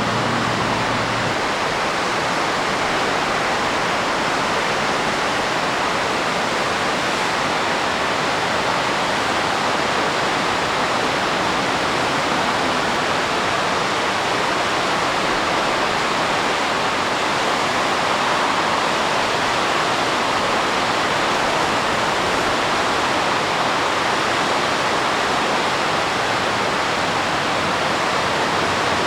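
Steady rushing of whitewater from the Kicking Horse River, an even, unbroken roar of water.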